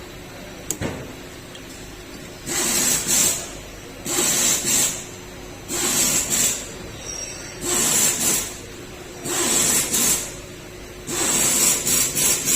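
A hand tool running in six short bursts, each about a second long and coming about every one and a half seconds, with a single sharp click about a second in.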